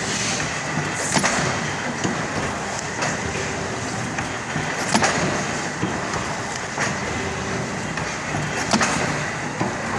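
Clamshell platen die-cutting press running, a steady mechanical clatter with four sharp knocks a couple of seconds apart as the platen presses the cutting die into cardboard sheets.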